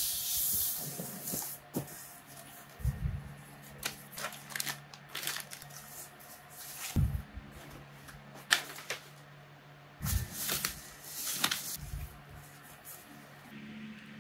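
Cardboard monitor box and molded paper-pulp insert tray being handled and opened: irregular scrapes, rustles and light knocks, with a few dull thumps as the packaging is moved.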